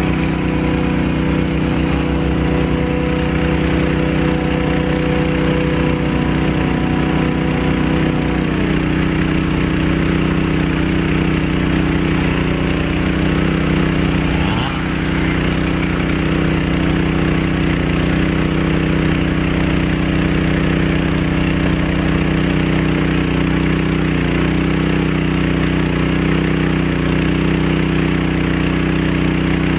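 Small gasoline engine of a portable water pump running steadily at a constant speed. A faint higher whine drops in pitch and fades about eight seconds in.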